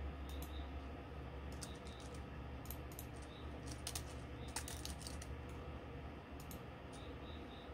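A scattered, irregular run of light clicks over a steady low hum.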